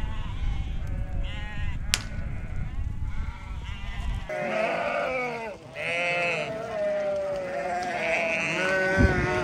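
A flock of sheep bleating, many calls overlapping. A low rumble runs under the calls and stops suddenly about four seconds in.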